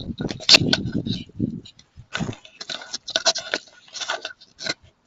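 Footsteps crunching through icy, crusted snow, in uneven bursts of crackling about every half second.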